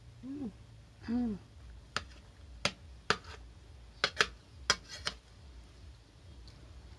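A metal spoon clinking and scraping against a ceramic plate while scooping rice, about seven sharp clicks between two and five seconds in. Before them, two short closed-mouth hums of enjoyment ("mm") while eating.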